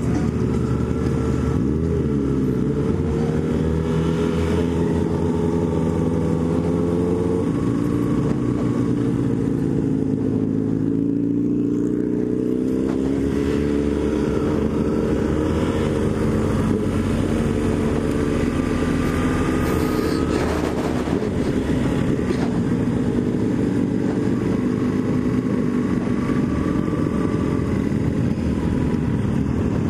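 Motorcycle engine running under way, its pitch rising and falling as the revs change.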